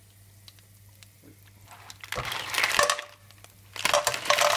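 Vongole veraci and lupini clams tipped from a plastic colander into a frying pan of hot olive oil: shells clattering onto the pan as the oil sizzles. This comes in two loud bursts, about two seconds in and again near the end, after a quiet start.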